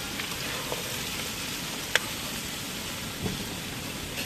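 Diced squash sizzling in hot oil in a wok over a wood fire, a steady hiss, with a single sharp click about two seconds in.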